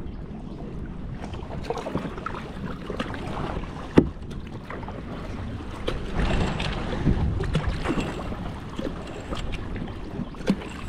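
Kayak paddling: paddle blades dipping and splashing in the water, with a single sharp knock about four seconds in.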